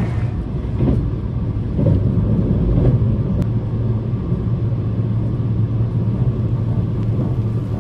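E653 series electric express train running at speed, heard from inside the carriage: a steady low rumble.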